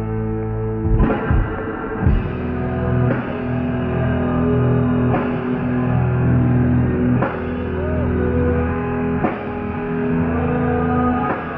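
Live punk rock band: a held, ringing guitar chord, then drums and distorted guitars come in together about a second in, with a cymbal crash roughly every two seconds.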